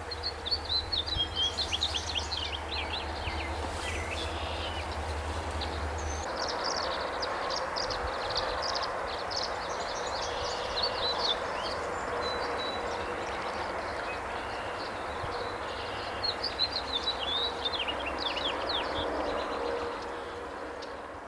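Tree swallows twittering in bursts of quick, high chirps, over a steady background rush of noise.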